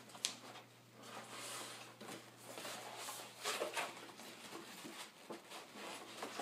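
Cardboard boxes scraping and rustling as a tight-fitting retail box is pulled up out of its shipping carton, with a few light knocks.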